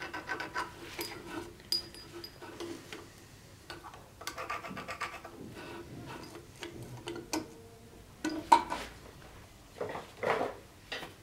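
Small steel parts and hand tools handled on a workbench: irregular light metal clicks and clinks with a few short scraping passages, and one sharp clink about eight and a half seconds in.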